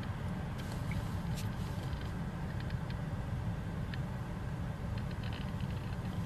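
Steady low outdoor rumble with faint scattered ticks.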